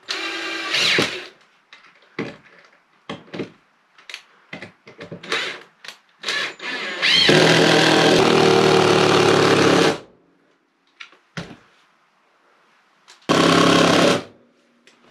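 Cordless drill driving screws into the framing boxed in around a stovepipe hole in the wall. There is a short run at the start, a long run of about three seconds in the middle that spins up quickly, and another short run near the end, with knocks and clicks from handling in between.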